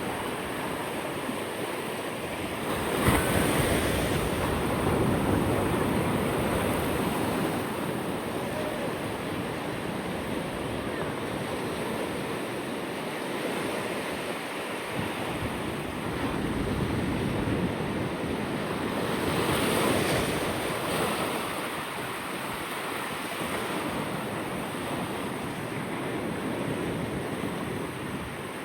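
Ocean surf washing onto a beach, with wind buffeting the microphone. Waves break more loudly about three seconds in and again about twenty seconds in.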